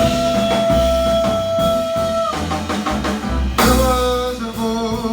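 Live jazz band of voice, guitar, keyboards, bass and drums playing, with long held notes over a steady bass line and drums.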